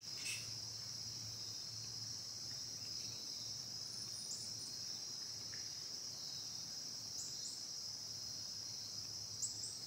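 Steady, high-pitched chorus of insects, with a few short, faint high chirps over it.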